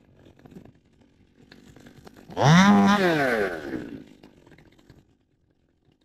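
Stihl two-stroke top-handle chainsaw revving up once about two seconds in, holding briefly, then winding back down and dying away.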